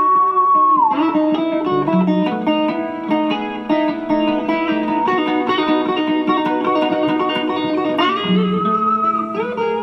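Electric guitar played through a pedalboard of effects: a lead line of sustained notes over held lower notes, with a string bend gliding a note down about a second in and another bending up near the end.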